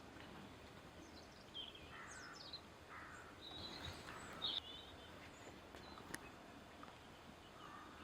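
Woodland birds calling faintly: scattered short chirps and calls, with a single sharp click about six seconds in.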